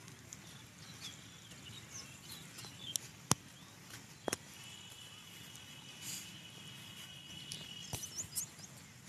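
Faint open-air ambience with scattered short, high bird chirps. Two sharp clicks stand out, a little over three and four seconds in, and a few more come near the end. A thin steady whine runs for a few seconds in the middle.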